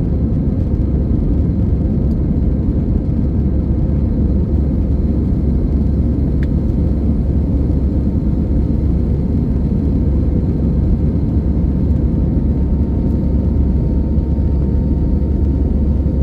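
Steady, loud low rumble of an Airbus A320's engines and airflow heard from inside the passenger cabin.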